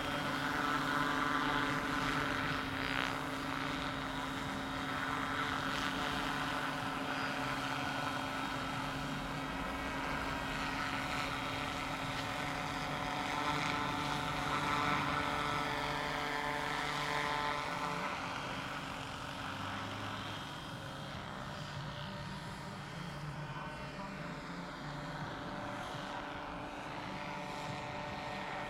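Large-scale electric RC model helicopter (Vario AS350 Ecureuil) in flight: a steady whine of several held tones from its electric drive and rotors. It drops a little in level about two-thirds of the way through as the helicopter moves farther off.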